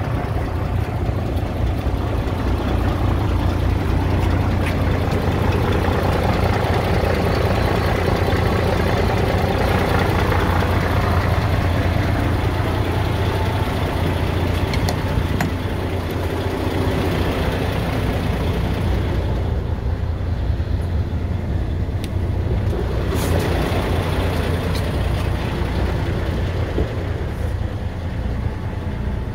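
DAF XF 105.460's 12.9-litre six-cylinder PACCAR MX diesel idling steadily. Near the end it is heard from inside the cab and sounds more muffled.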